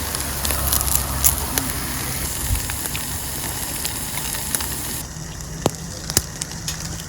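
Wood fire crackling in a fire pit, a steady hiss with many sharp pops. The hiss drops off suddenly about five seconds in, leaving scattered pops.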